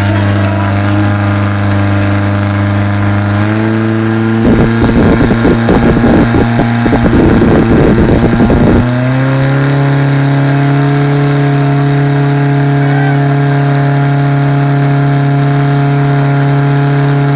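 Portable fire pump's engine running at high throttle, its pitch stepping up about three and a half seconds in. From about four and a half to nine seconds in it goes loud and rough, then holds a steady higher speed while pumping water through the hoses to the targets.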